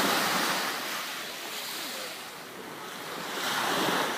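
Mediterranean sea waves breaking and washing up the beach: one surge loudest at the start, easing off, then a second building up near the end.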